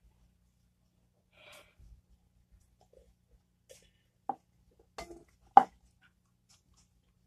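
A few short, sharp knocks of drinking cups set down on a tabletop, the loudest about five and a half seconds in, with a brief soft hiss earlier.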